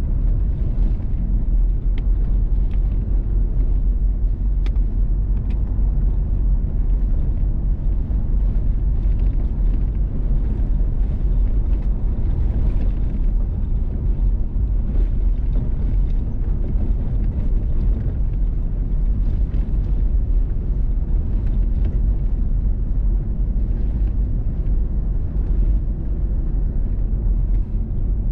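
Vehicle driving on a gravel road: a steady low rumble of tyres and engine, with a few sharp ticks.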